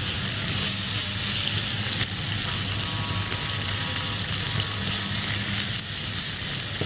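Minced meat and ginger-garlic paste sizzling steadily as they fry in oil in a wok, stirred with a spoon, over a steady low hum.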